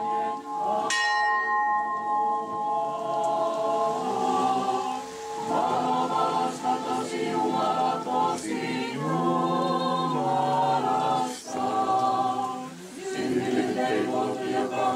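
A bell struck once about a second in, its tones ringing on for a few seconds; then a small congregation sings an Orthodox hymn unaccompanied, in several voices.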